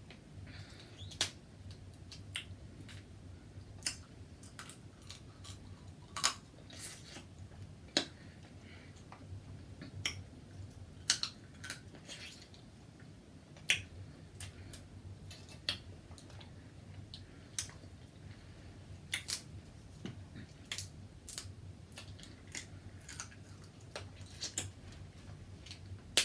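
Eating sounds: irregular sharp clicks and wet smacks of a person eating a seafood boil by hand, over a steady low hum.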